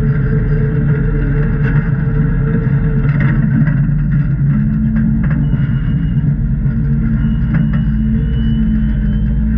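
Jeep engine running steadily during rock crawling, with a few faint knocks and a thin high whine in the second half.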